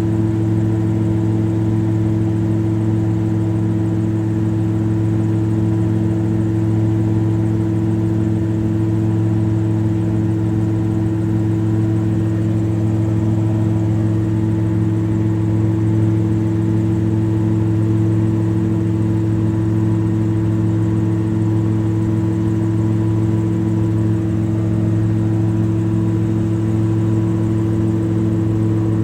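Drone's motors and propellers humming steadily in flight, an even multi-pitched drone with no change in speed.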